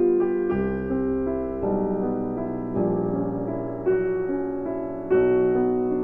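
Background piano music: slow held chords, a new one struck about once a second.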